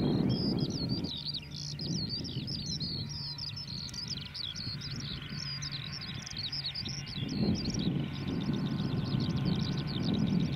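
Birds singing continuously with rapid high chirps over the low rumble of a distant Class 47 diesel locomotive hauling a train. The rumble drops away about a second in and swells again after about seven seconds.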